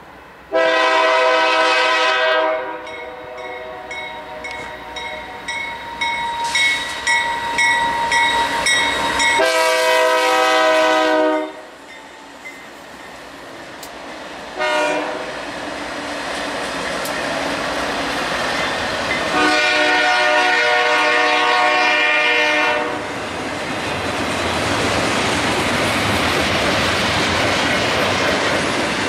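BNSF diesel locomotive's multi-chime air horn sounding the grade-crossing signal: long, long, short, long, with a bell ringing rapidly between the first two blasts. Then the locomotives and double-stack intermodal cars roll past with a steady rumble and wheels clattering over the rail joints.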